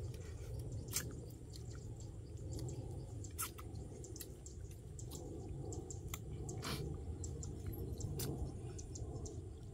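People eating grilled fish with their fingers: chewing, lip smacks and scattered soft clicks as they pick the flesh off the bones, over a low steady rumble.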